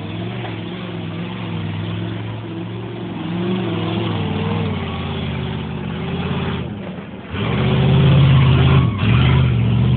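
Lifted pickup truck's engine running steadily as it drives up the off-road trail, its pitch wavering with the throttle. About seven seconds in it revs much louder as it passes close, followed by short bursts of throttle near the end.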